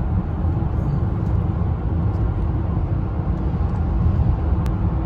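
Steady low rumble of road and engine noise inside a car cruising at highway speed.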